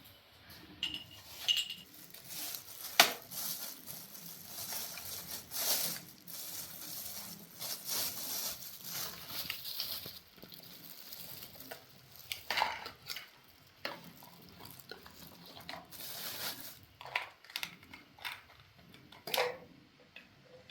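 Irregular clicks, knocks and rustles of things being handled, the sharpest knock about three seconds in.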